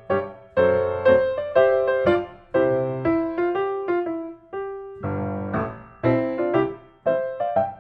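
Background piano music: a slow melody of chords struck about once a second, each fading out.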